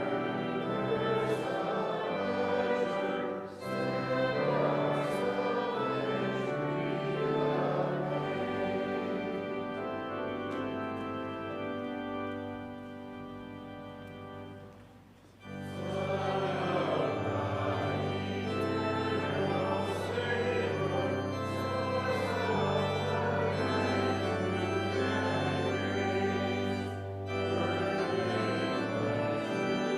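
Organ with a group of voices singing a hymn in sustained chords. The music softens and breaks off briefly about halfway through, then comes back in fuller.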